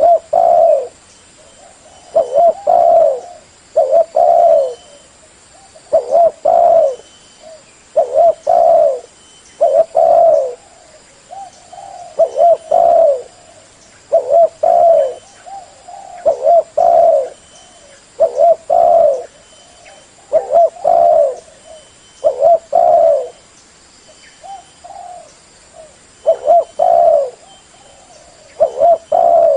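Spotted dove cooing over and over: loud, low phrases of two or three coos, one about every two seconds.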